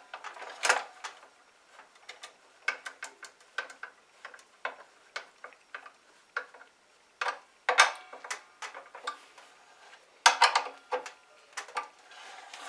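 Hand tool tightening a fastener on a mitre saw: a run of light irregular clicks and small metal clinks, a few louder knocks about two thirds of the way through.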